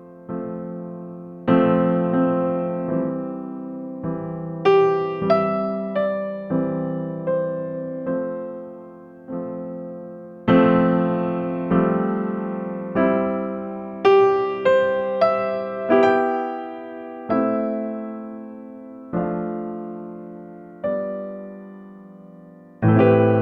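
Background music: slow electric piano notes and chords, each struck and left to fade.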